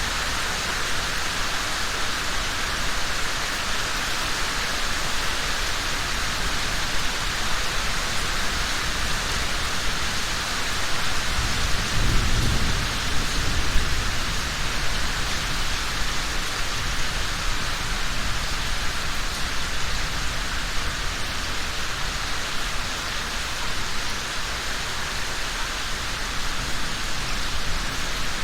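Steady rain falling, with a low rumble of thunder swelling up about twelve seconds in and fading over a few seconds.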